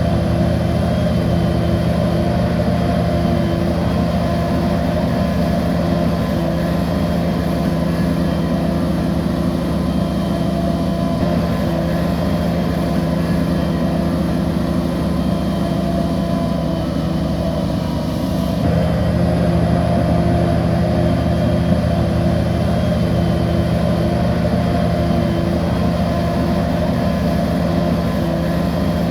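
Bulldozer's diesel engine running steadily under load, easing off briefly a little past halfway and then picking up again.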